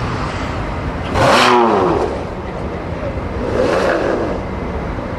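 A car engine revving: a loud rev about a second in that falls away, then a weaker rev around three and a half seconds in, over steady background noise.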